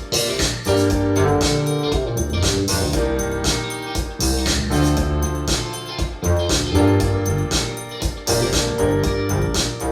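Music played back through SABA 1300 Professional vintage hi-fi speakers: a track with a steady beat, bass notes and sustained keyboard chords.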